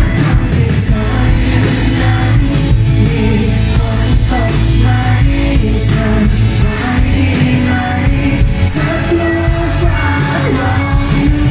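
Live pop-rock band: a male vocalist sings into a handheld microphone over keyboard and electric guitar backed by the full band.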